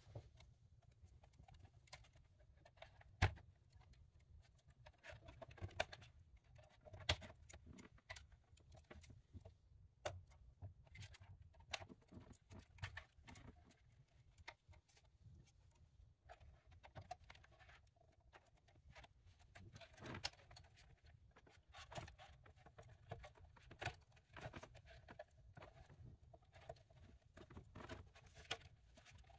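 Scattered faint clicks, taps and rustles of hands handling a BMW navigation screen's plastic housing and circuit boards, with a few sharper clicks, the loudest about three and seven seconds in.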